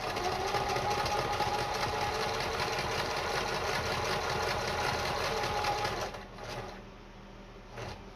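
Kenmore 158.10500 sewing machine running steadily while sewing a zigzag stitch. It slows and stops about six seconds in, and there is a light click near the end.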